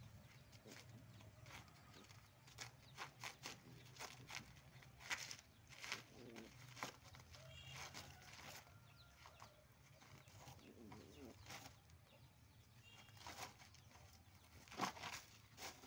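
German shepherd puppy chewing and tearing a sheet of cardboard: faint, scattered crinkles and rips, with paws scraping on gravel. Louder rips come a third of the way in and near the end.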